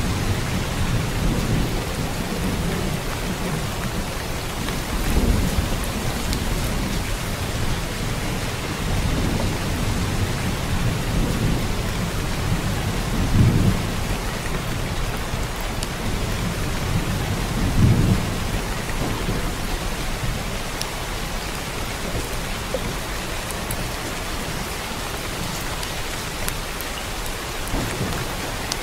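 Steady heavy rain with low rolling thunder. The loudest rumbles swell about five, thirteen and eighteen seconds in.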